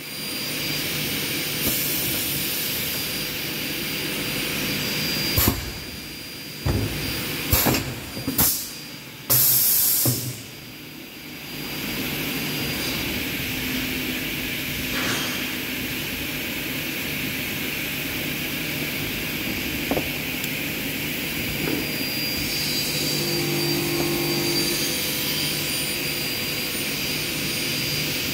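Aluminium profile corner crimping press at work: sharp knocks and short loud hissing bursts between about five and ten seconds in, then the machine running with a steady hum and hiss.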